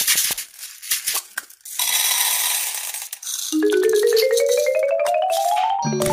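A few light clicks and a rattling, hissing swish, then a xylophone-like run of short notes climbing steadily in pitch, ending in a ringing chime near the end.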